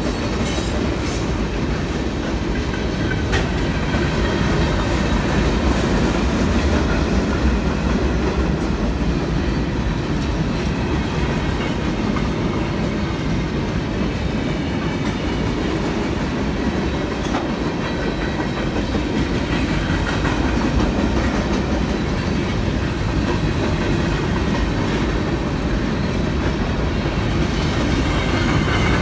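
Freight train cars rolling steadily through a grade crossing: the continuous noise of steel wheels on the rails, even in level throughout.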